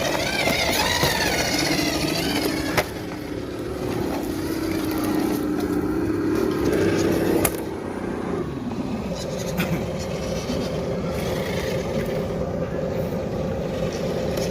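Electric motor and gearbox of a scale RC crawler truck whining as it crawls over an obstacle, the pitch rising and falling with the throttle for the first half, then holding a steady whine. A couple of sharp knocks come at about three and seven seconds in.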